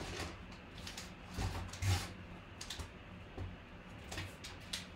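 Faint scattered clicks, knocks and rustles of objects being handled, with the loudest knocks about a second and a half to two seconds in.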